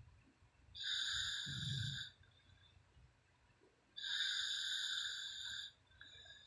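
A sleeping woman snoring: two long, hissing breaths about three seconds apart, each lasting over a second, with a low rumble under the first.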